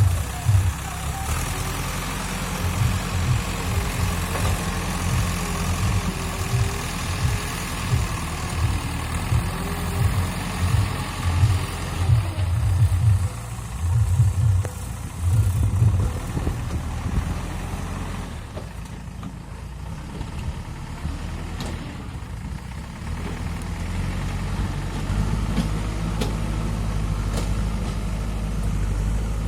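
JCB 3DX backhoe loader's diesel engine running under work, with repeated low surges for the first half. It eases off for a few seconds, then settles into a steadier, heavier rumble near the end.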